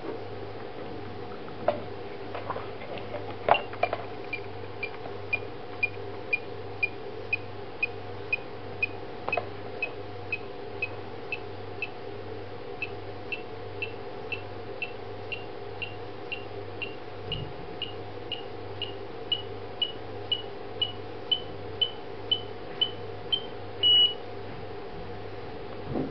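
Electronic beeping from a Tekelek ultrasonic water-tank monitor and sensor in learn (pairing) mode: a steady run of short high beeps about two a second, creeping slightly higher in pitch, with a brief pause midway and one longer beep near the end. A few clicks come in the first seconds.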